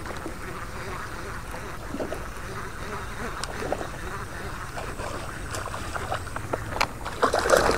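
A snakehead striking a topwater frog lure and thrashing at the surface: water splashing, loudest near the end, over a steady hiss.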